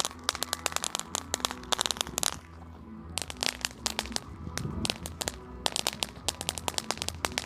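Small firecrackers going off in rapid, irregular sharp pops, with a short lull about two and a half seconds in.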